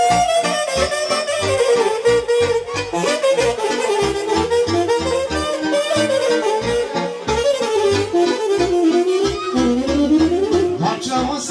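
Live saxophone playing a winding solo melody over a steady dance beat from the band's backing: an instrumental break in Romanian party music, with no singing.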